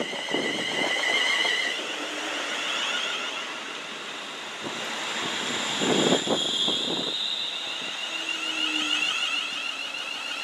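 London Northwestern Class 350 Desiro electric multiple unit running close past, its traction equipment giving several high, wavering whining tones. Wheel clatter sounds as the train arrives and again about six seconds in.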